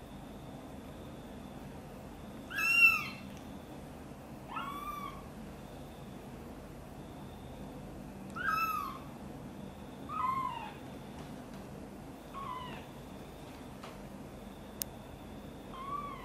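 A very young kitten mewing: six short, high-pitched calls a couple of seconds apart, the first the loudest. A single small tick sounds near the end.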